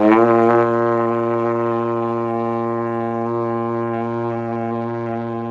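Tenor trombone holding one long, low B-flat with the slide closed in first position. The note is steady in pitch and slowly fades as the breath runs down: a long-tone exercise played as long as the air lasts.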